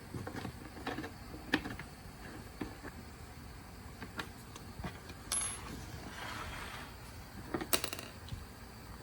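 Scattered light clicks and taps of small hard objects being handled, a few sharper knocks among them, with a brief soft rustle a little after the middle.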